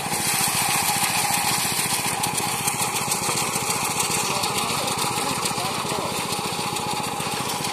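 Small engine of a motorized rice thresher running steadily, a fast even pulsing.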